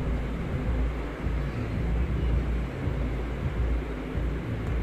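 Steady low rumble with a faint hiss of background noise, with no distinct knocks or clatter.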